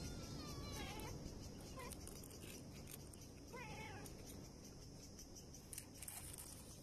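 Cats meowing: short meows about one and two seconds in, then a clearer, longer meow about three and a half seconds in, over faint steady background noise.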